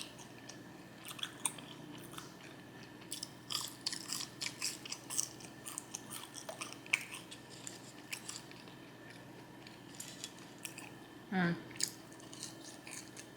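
Close-miked chewing of fried fast food: irregular wet mouth clicks and crunches, densest a few seconds in. Near the end comes one brief vocal sound.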